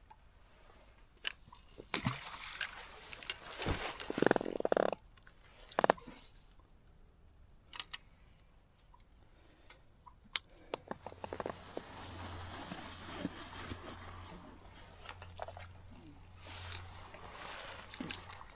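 Handling noise of fishing tackle and clothing: scattered clicks, knocks and rustles, loudest about four to six seconds in. About ten seconds in a steady low hum begins and continues.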